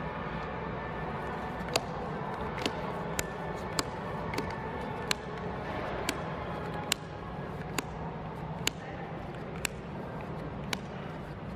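Trading cards being flicked through one at a time, each card snapping sharply as it is moved to the back of the stack, about once a second, over a steady background noise.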